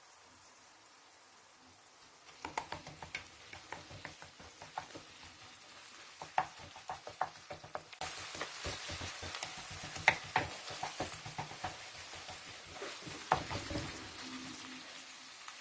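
A utensil clicking and scraping in a pan as food is stirred. About eight seconds in, a steady sizzle of frying starts and runs on under the stirring.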